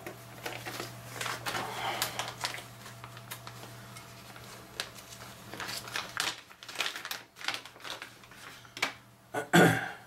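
Small clicks, taps and rustles of small items being picked up and handled on a workbench as an alcohol pad is fetched, with a louder knock near the end. A low steady hum runs under it and stops partway through.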